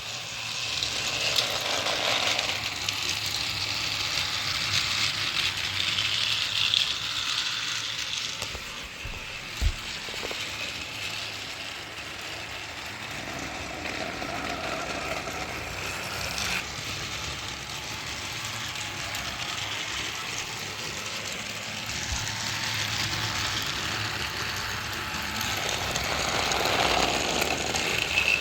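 Motorized Thomas toy train engine running around its plastic track, its small motor whirring and the cars rattling, growing louder and fainter as it comes and goes. A single knock about ten seconds in.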